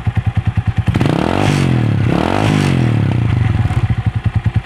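DL 150 motorcycle engine with an Apido aftermarket exhaust pipe, idling in even pulses, then blipped twice in quick succession about a second in, the pitch rising and falling each time before it settles back to idle.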